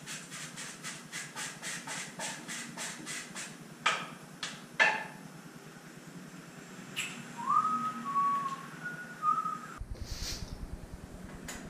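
A run of even clicks, about three a second, then two sharp knocks, the loudest sounds, while working on a bicycle; after that a person whistles a few short notes.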